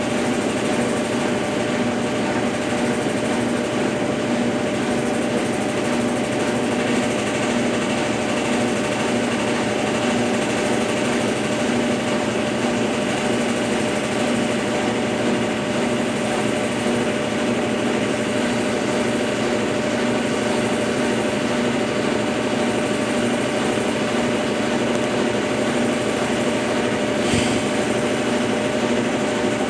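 Consul Facilite 10 kg top-loading washing machine running steadily through its rinse and spin cycle: a continuous motor hum with a steady whine and an even pulsing throb. A brief click near the end.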